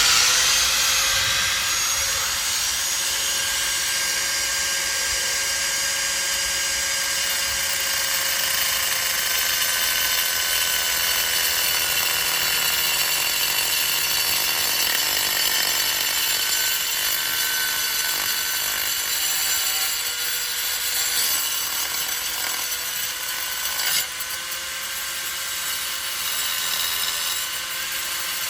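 Handheld power cutter cutting through wall tile freehand: a steady motor whine over a gritty grinding noise. The motor note dips briefly under load about twenty seconds in, and there is a short knock a few seconds later.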